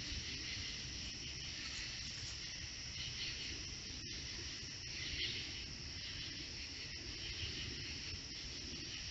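Steady chorus of night insects, a dense high-pitched trill, over a low background hiss, with a very brief dropout about four seconds in.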